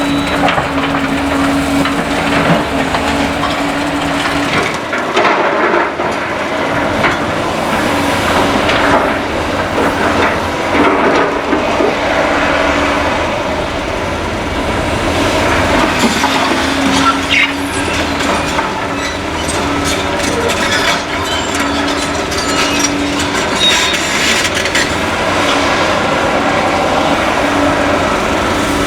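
Caterpillar excavators working on demolition: diesel engines running with a steady hum that comes and goes, over continual clattering, knocking and crunching of debris being broken and moved.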